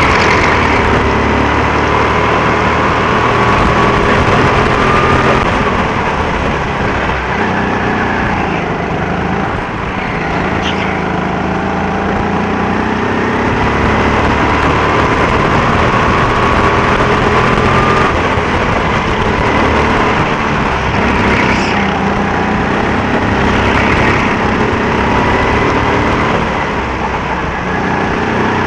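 Go-kart engine running hard, its pitch slowly climbing and then dropping back several times as it revs up and eases off.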